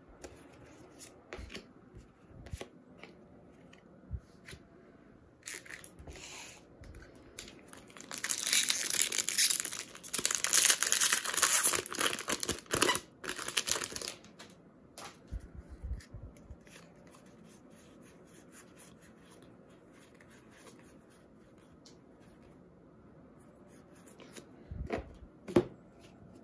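Trading cards handled with scattered light taps, then about eight seconds in a foil Magic: The Gathering booster pack wrapper crinkling and tearing open for several seconds. Quieter card handling follows, with a couple of taps near the end.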